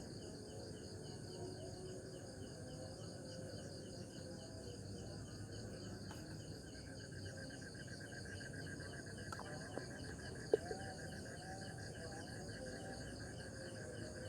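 Crickets chirping in a steady night chorus: several overlapping rhythmic trills, one pulsing about four times a second, with a second lower-pitched trill joining about halfway. A single sharp tap sounds about ten seconds in.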